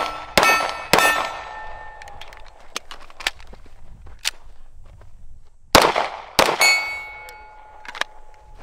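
Pistol shots on steel targets, each followed by the ring of the struck steel: two shots about half a second apart, then a pause of some four seconds and three more in quick succession.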